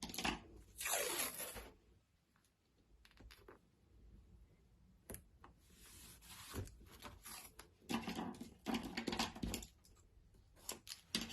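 Paper masking tape being pulled off the roll in three rasping strips, with small taps and clicks between as it is pressed down.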